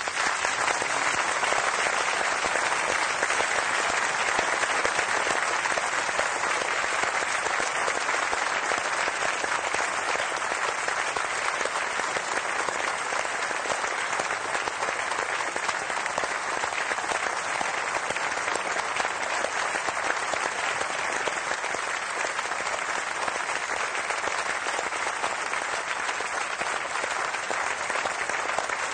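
A large audience applauding: the clapping breaks out all at once and keeps up as a dense, steady ovation, easing a little toward the end.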